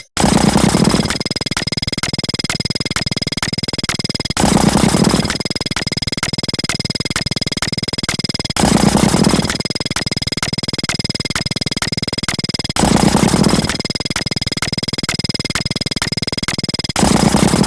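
Synthesized electronic sound effects: a dense, steady layer of fast, even ticks over high sustained tones, with a louder buzzing burst of about a second that comes back about every four seconds.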